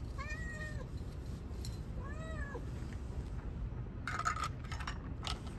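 Black-and-white domestic cat meowing twice, each meow about half a second long, rising then falling in pitch. About four seconds in there is a brief scuffling noise.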